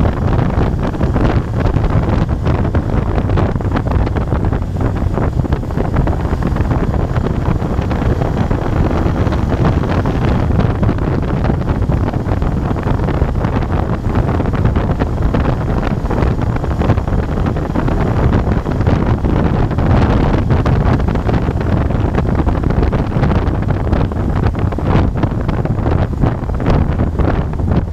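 Wind rushing and buffeting over a microphone on a moving motorcycle, with a Moto Guzzi Bellagio's transverse V-twin engine running steadily underneath at road speed.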